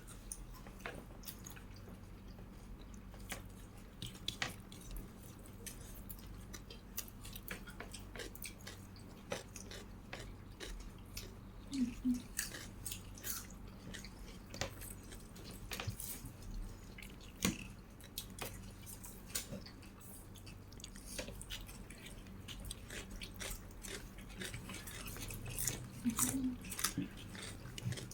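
A person chewing and biting food close to the microphone: wet mouth sounds with frequent short clicks and crackles.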